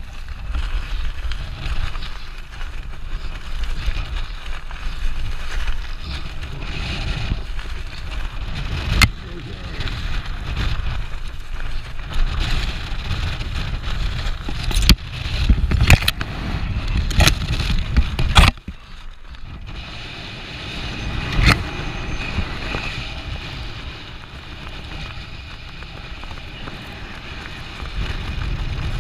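Air rushing over a skydiver's helmet-camera microphone and canopy fabric flapping during a main-parachute malfunction and cutaway to the reserve. There are several sharp snaps between about 15 and 18 seconds in, after which the rush drops suddenly and stays quieter.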